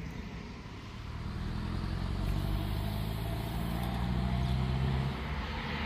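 A motor vehicle's engine running, growing louder over a few seconds as it approaches and easing off about five seconds in.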